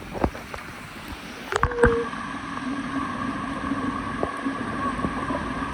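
A few light knocks and a short held tone, then about two seconds in a steady mechanical hum made of several held tones starts and runs on.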